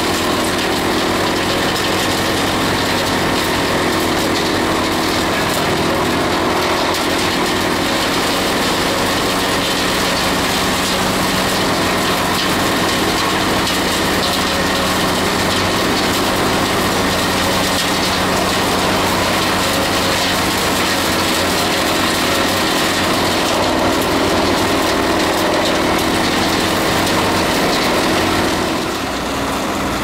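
Lippel Jacaré 700 forestry wood chipper, driven by its diesel engine, running steadily under load while chewing through fed tree branches, a continuous engine drone with dense crackling from the wood being chipped. It drops slightly in level near the end.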